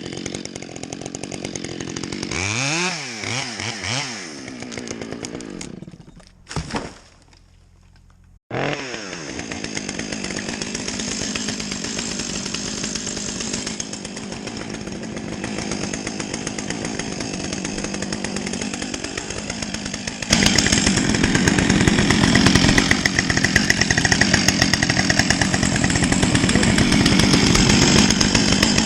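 Chainsaw revving up and down a few times, dropping away briefly, then starting up again and running steadily; it gets louder about two-thirds of the way through as it cuts into a tree.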